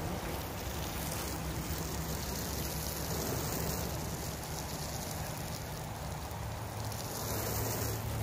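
Garden hose spraying water onto a pickup truck's body: a steady hiss and patter of water, with a faint low steady hum under it.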